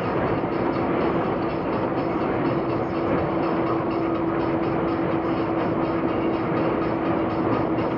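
Steady road and engine noise of a moving car, heard from inside the cabin, with a constant hum.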